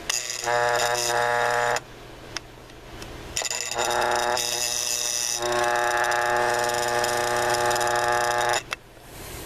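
Westclox Minikin electric alarm clock's alarm going off in a steady electric buzz, once for about two seconds and then again for about five seconds, stopped by hand each time.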